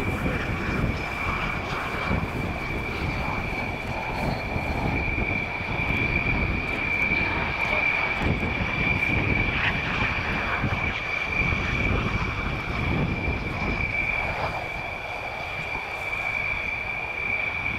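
Jet engines of Red Arrows BAE Hawk jets flying a display, heard from a distance as an uneven low rumble that swells and fades. A steady high whine runs throughout.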